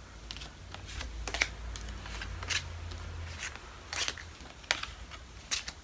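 Brand-new, stiff tarot cards being picked up and laid down on a table: a series of sharp, separate clicks and taps at irregular intervals.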